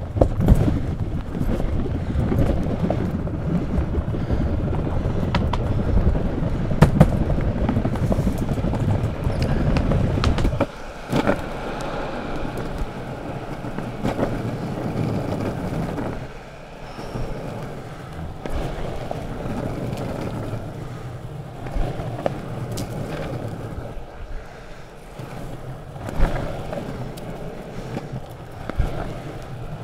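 Longboard wheels rolling on an asphalt path: a steady, gritty rumble, louder for the first ten seconds or so and softer after that, with a few sharp clacks as the board crosses joints in the path.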